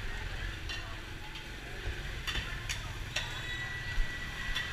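Riding a motorcycle through city traffic: a steady rushing noise over a low rumble, broken by several sharp clicks, with a thin high steady tone coming in about three seconds in.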